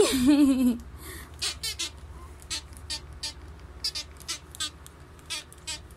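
A short, high-pitched, wavering voice slides steeply down in pitch in the first second, in a playful vocal sound made to a baby. Irregular soft clicks and rustles follow, a few each second.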